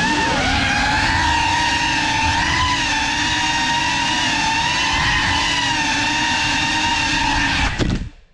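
GEPRC Cinelog 35 cinewhoop's brushless motors and ducted propellers whining in flight, pitch rising as the throttle comes up at the start and then holding with slight wavering. The whine cuts off suddenly about eight seconds in as the drone lands.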